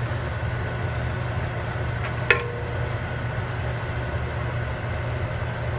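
Steady low mechanical hum, with a single sharp knock and brief ring about two seconds in as the plastic spatula strikes the metal pan.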